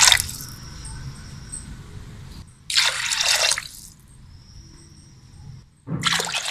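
Water poured into an aluminium pressure cooker onto raw-roasted chana dal, adding the cooking water for the dal. The pouring is loudest in two spells, about three seconds in and again near the end, with a faint trickle between.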